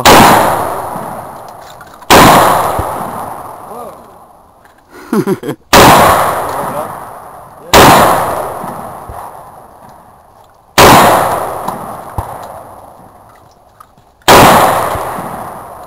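Six gunshots from a firearm fired at a deliberate pace, roughly two to three and a half seconds apart, each echoing away over a couple of seconds.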